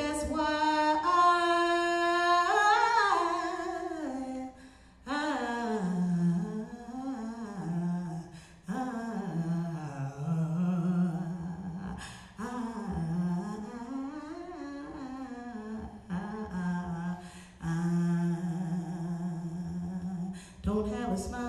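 A woman's wordless vocalizing into a microphone: long held notes that slide up and down in pitch, in phrases of a few seconds broken by short pauses. The first phrase is pitched higher; the rest sit lower, closer to humming.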